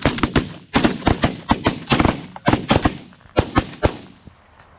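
Volley of shotgun fire from several hunters shooting at a flock of geese: many sharp blasts in quick, overlapping succession for about four seconds, then stopping.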